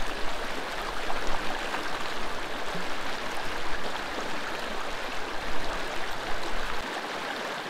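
Creek water rushing steadily over rocks, with a low rumble under it that stops near the end.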